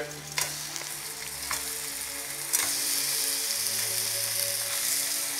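Mantis shrimp being dropped into hot oil with garlic and onion in a frying pan, sizzling; the sizzle gets louder about two and a half seconds in.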